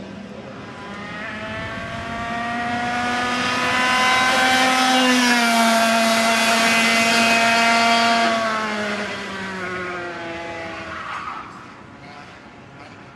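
A Parilla Leopard 125cc two-stroke kart engine running at high revs as the kart drives past: the note swells, drops in pitch as the kart goes by, then falls away and fades.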